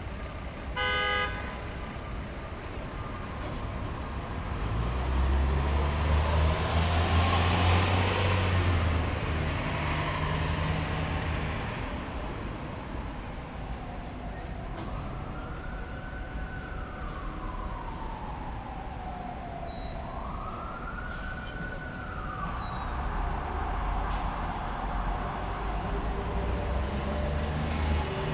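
City street traffic with steady vehicle noise. A short horn toot comes about a second in, a heavy vehicle's engine rumble swells and passes in the first half, and a siren wails twice in the middle, each wail rising, holding and falling.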